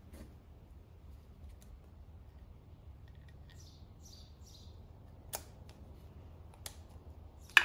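Snap ring pliers fitting a wrist-pin circlip into the groove of an air-cooled VW engine's piston: a few faint metal scrapes, then single sharp clicks, the loudest just before the end.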